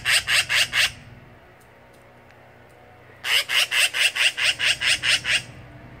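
Black-billed magpie chattering: a fast run of harsh calls, about five or six a second. The run breaks off about a second in, and a second run starts about three seconds in and lasts about two seconds.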